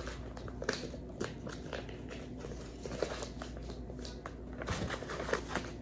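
Faint, irregular crinkling and light clicks of small objects being handled at close range.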